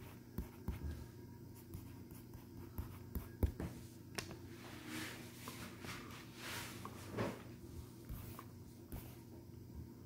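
Stylus writing and drawing lines on a tablet screen: scattered light taps with a few longer scratchy strokes, most of them in the middle stretch.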